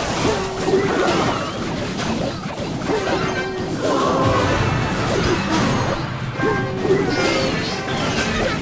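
A loud, dense jumble of music and crashing noise, with short wavering pitched sounds running through it.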